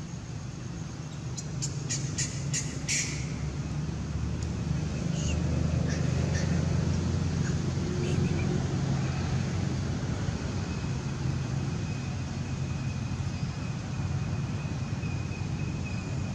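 Low, steady rumble of distant motor traffic that swells for a few seconds in the middle, then eases. A quick series of sharp clicks about two seconds in, and a thin high steady tone from about two-thirds of the way through.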